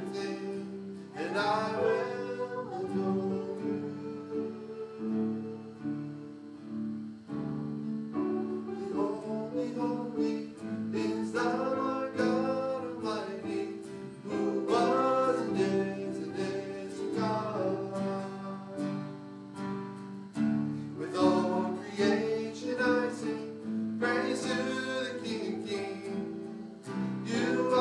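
A worship song sung by a solo voice over strummed acoustic guitar.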